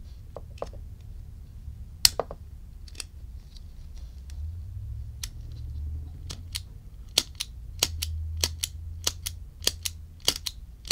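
Small metal clicks of a vintage Ronson Triumph automatic petrol lighter's mechanism as its lever is pressed and the snuffer snaps back. There is a sharp click about two seconds in, then a run of clicks at roughly two a second through the second half. The mechanism is still gummy and not yet sparking.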